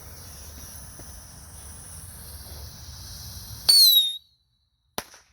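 A small firecracker's lit fuse hisses steadily for several seconds, then the firecracker goes off with a loud, sharp bang. A second, shorter crack follows about a second later.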